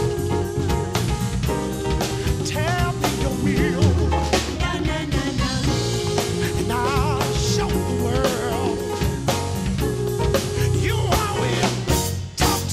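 Live gospel band playing a song, with drum kit, electric bass and piano under a group of singers.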